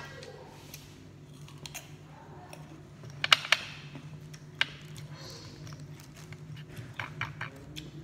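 Light clicks and taps of hands handling a cut green fruit over a ceramic bowl, with two sharp clicks about three seconds in, another a second later and a quick run of them near the end, over a steady low hum.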